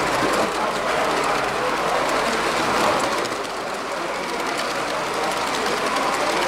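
H0-scale model freight train of coal-loaded hopper wagons rolling steadily along the layout's track, its wheels rattling and clicking over the rails, with voices murmuring in the background.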